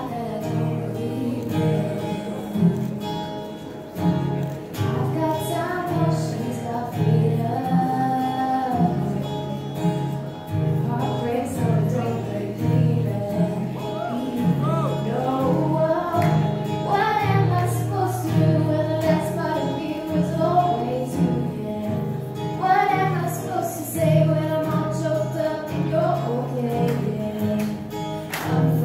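A woman singing a song while strumming a cutaway acoustic guitar in a steady chord rhythm.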